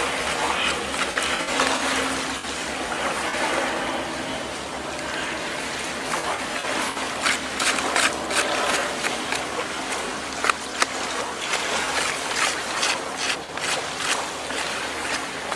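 Lake water sloshing and trickling around a birch-bark box held down in the shallows at the shore, with scattered small splashes, more of them in the second half.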